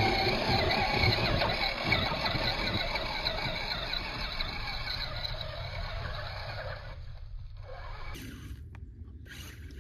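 Axial Wraith RC rock racer's electric motor and geartrain whining as it drives through snow and leaves, fading over several seconds as it climbs away.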